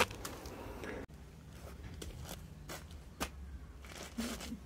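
A sharp handling knock, then a few scattered soft crunching clicks of footsteps on gravel and a turf mat over a low steady background rumble.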